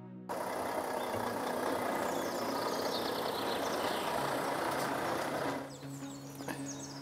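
A large lorry's engine running close by, a loud steady rumble that drops away abruptly about five and a half seconds in. Birds are chirping after it.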